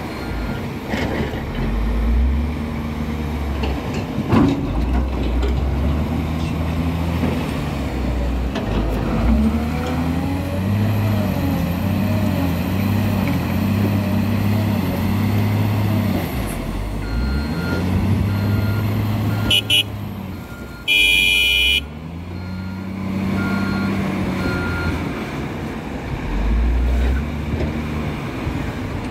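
Caterpillar 966H wheel loader's diesel engine working, its pitch rising and falling over and over as it digs and lifts loads. A reversing alarm beeps on and off in the second half, and a short horn blast sounds a little past the middle.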